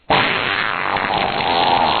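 A long, loud fart sound effect that starts suddenly and runs on for over two seconds with a rough, noisy texture.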